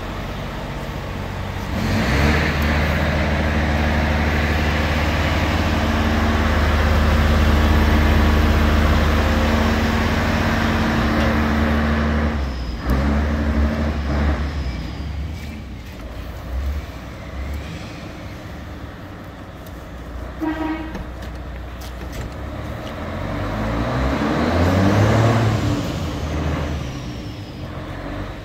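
Kubota U48-4 mini excavator's diesel engine running. It runs louder and higher from about two seconds in until about twelve, drops back to a lower, quieter run, and revs up and back down once near the end.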